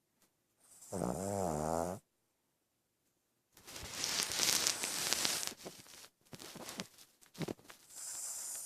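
Dog snoring, a deep snore like a man's. A pitched, wavering snore comes about a second in, then after a short pause a longer noisy breath lasting about two seconds, followed by softer breaths.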